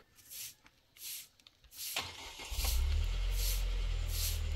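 A motor starts about two seconds in and runs on with a steady low hum. Over it, a soft swishing sound repeats a little faster than once a second.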